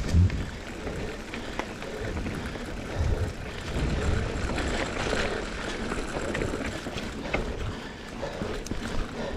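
GT Aggressor Pro hardtail mountain bike rolling along a dirt singletrack: tyres rumbling over dirt and dry leaves, with irregular thumps and rattles as the bike hits bumps, strongest just after the start.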